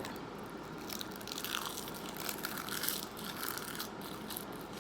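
Close-miked eating sounds: irregular soft chewing with small mouth clicks and crunches.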